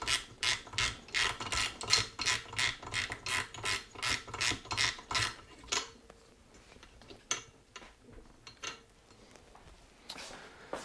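Hand socket ratchet clicking in quick, even strokes, about four clicks a second, as a cylinder head bolt is run down. The ratcheting stops about six seconds in, leaving a few faint clicks and tool handling.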